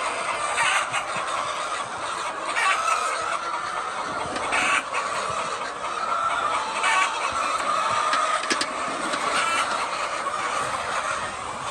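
A large flock of laying hens clucking all at once in a steady, unbroken din, with a few sharp clicks here and there.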